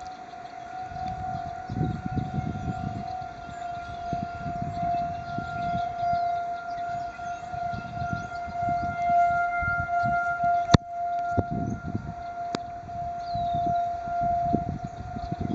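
Outdoor tornado warning siren sounding a single steady tone during a test. Gusty low wind noise rumbles on the microphone, and there is a sharp click about eleven seconds in.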